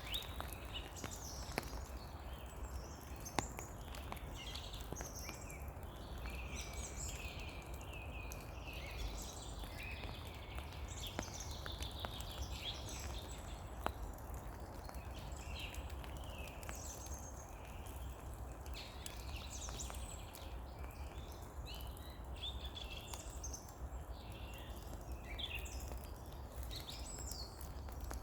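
Steady rain in a spring forest, with many small songbirds chirping and singing throughout and a few sharp single drip taps.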